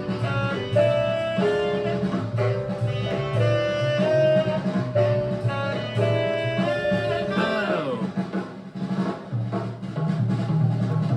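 Recorded hard-bop jazz playing back: horns play a loud ensemble line over drums, the shout chorus of the tune. A falling run about three-quarters of the way through ends the horn line, and the drums carry on.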